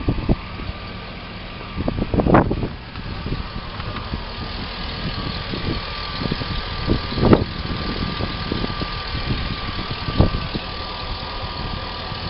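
2005 Chevrolet Silverado 2500HD engine idling steadily with the hood open, a thin steady high tone over the idle, and three brief thumps.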